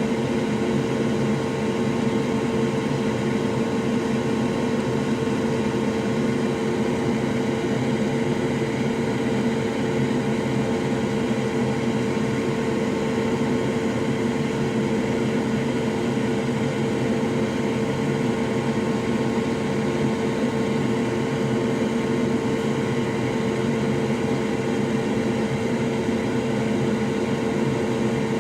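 Solder fume extractor fan running at high speed: a loud, steady blowing hum with a constant droning tone.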